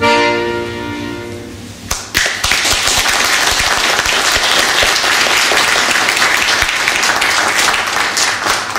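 An accordion holds the song's final chord, fading for about two seconds, then the audience breaks into steady applause.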